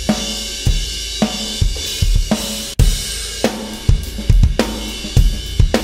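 Drum kit playing a steady beat, first with the cymbals hit hard and the drums soft, so the cymbal wash covers the snare and kick; after a short break about three seconds in, the same beat with the cymbals soft and the drums hit hard. It is a demonstration of how the kit's balance changes with how hard the drums and cymbals are struck.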